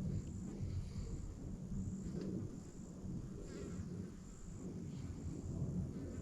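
Insects chirping in an even pulse, about once a second, high-pitched, over a louder low rustling rumble.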